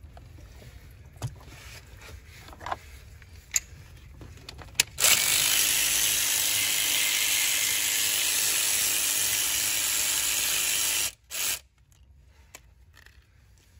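A power tool runs steadily with a strong hiss for about six seconds, starting about five seconds in and cutting off suddenly, then gives one short burst. Before it come a few light metallic clicks.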